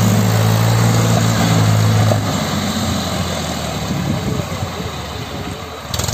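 Diesel tractor engine running under load as it hauls a sugarcane-laden trolley. A steady hum for about two seconds, then the engine note breaks up and turns quieter and rougher as the rig moves off across the road.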